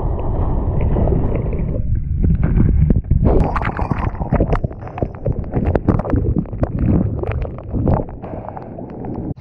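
Churning whitewater around a camera carried through a broken wave. At first a muffled low rumble, as if heard under water, then from about three seconds in a dense crackle of splashes and bursting bubbles as foam washes over the lens.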